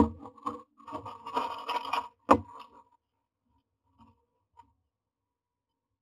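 A myna coming into a wooden nest box: a knock, then about a second of scratching and scraping on the wood and nest material, and a sharp thump a little past two seconds in, followed by a few faint taps.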